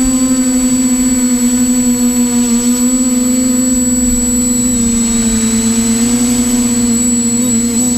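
TBS Discovery Pro quadcopter's motors and propellers whining steadily in flight, the pitch wavering slightly as motor speeds are adjusted and dipping a little about halfway through, over a low rumble of wind and prop wash on the microphone.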